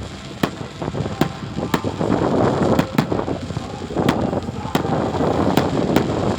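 Fireworks going off: sharp bangs spaced irregularly, roughly one every half second to second, over a rushing noise that thickens from about two seconds in.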